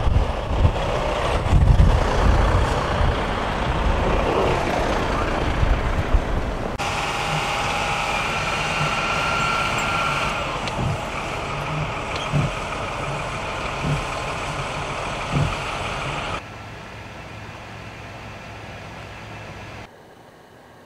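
Heavy vehicle engines in a snowstorm, over several cuts: a John Deere motor grader running while it clears deep snow, with heavy low noise; then a steady engine whine with a few dull thumps; then a quieter steady hum.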